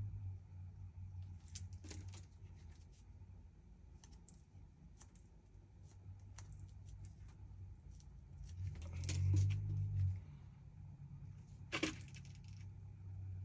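Scattered small clicks, taps and light scraping as a wooden stick packs powder into the end of a small metal fuse tube, with a low steady hum underneath. The handling gets louder about nine seconds in, and a single sharp click comes near the end.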